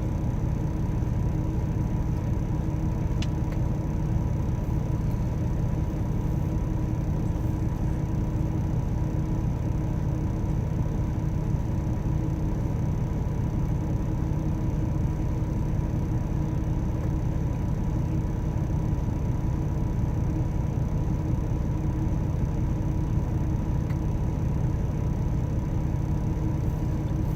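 Tractor-trailer's diesel engine running steadily, a low drone with a steady hum that does not change.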